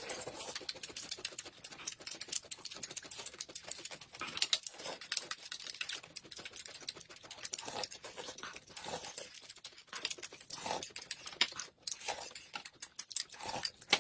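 Close-up eating sounds: wet chewing and slurping of a thick corn soup sipped from spoons, a dense run of small mouth clicks.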